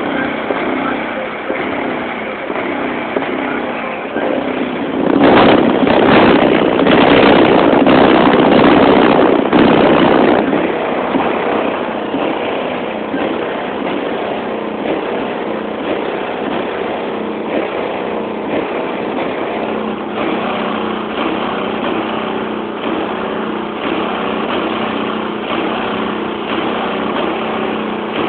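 Two new 12-inch Sundown Z subwoofers, powered by a Sundown 3500 amplifier, playing bass-heavy music in a car while they are broken in, heard from outside the car. It runs loud with a repeating bass pattern and swells louder for several seconds about five seconds in.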